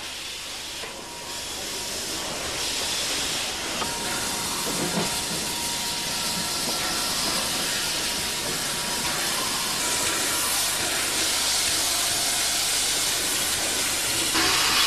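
Steam locomotive venting steam with a steady hiss that builds over the first couple of seconds and then holds.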